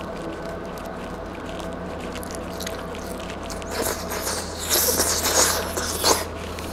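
Biting into and chewing a chicken tortilla wrap close to the microphone: a couple of seconds of crackly, wet mouth and tortilla sounds in the second half, over a steady low hum.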